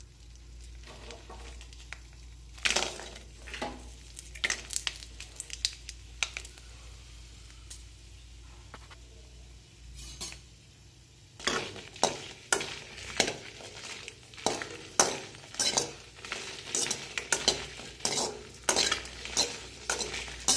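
Dry round red chillies dropping one by one into a steel kadai with a little hot ghee. From about halfway, a perforated steel spatula stirs and scrapes them around the pan, clattering about twice a second.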